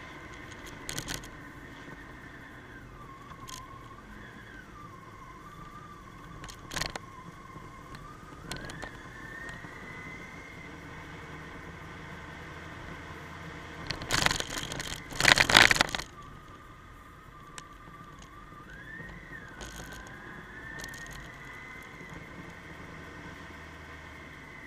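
Motorcycle riding along a winding road: a steady rush of engine and road noise with a whining note that dips and rises several times as the speed changes. About two-thirds of the way through come two loud blasts of noise lasting about two seconds, with a few short clicks elsewhere.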